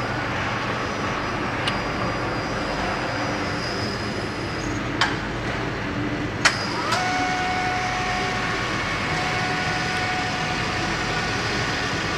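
Automated bakery production-line machinery running with a steady hum, with a few sharp clanks, the loudest about six and a half seconds in. A steady whine sets in about seven seconds in.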